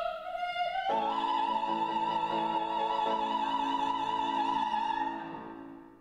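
Operatic soprano singing one long high note with vibrato, accompanied by a piano. About a second in the voice steps up to a higher pitch as a piano chord sounds beneath it; the note is held for about four more seconds and then fades away.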